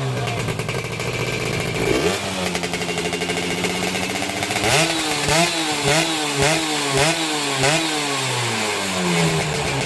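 Two-stroke single-cylinder engine of a Yamaha F1ZR, bored to about 125cc, running through an RTX Super Premium aftermarket exhaust. It idles, steps up to a steady higher rev about two seconds in, then gives a rapid string of throttle blips before settling back near the end.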